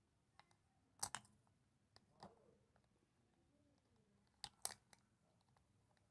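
Indian ringneck parrot playing with a toy game: sharp clicks and taps of hard pieces, in a quick pair about a second in, single taps near two seconds, and another quick cluster about four and a half seconds in, over near silence.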